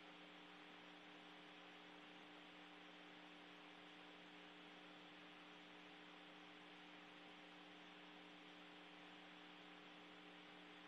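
Near silence: a faint, steady hum with hiss, unchanging throughout.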